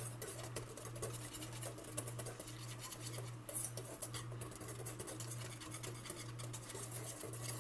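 Wire whisk scraping and clicking against a bowl as cake batter is mixed, in many small irregular strokes.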